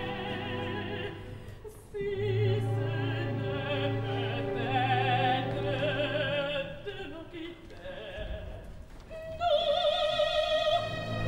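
An opera singer singing in French with orchestral accompaniment, wavering lines over a sustained low note in the orchestra. About nine and a half seconds in, a soprano enters on a high held note with strong vibrato.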